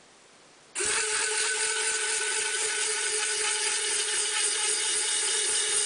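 Small N20 gear motors start abruptly just under a second in and run steadily with a high whine, turning the screw mechanisms that move the model excavator's boom.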